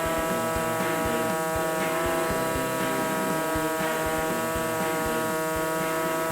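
A small power cutting tool running at a steady speed with a constant whine as it cuts slots in a Jeep Wrangler's factory grille.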